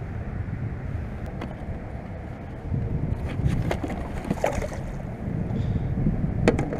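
Wind rumbling on the microphone, with a few sharp knocks and a brief splash-like hiss as a largemouth bass flops about while being measured in a kayak; a louder knock comes near the end.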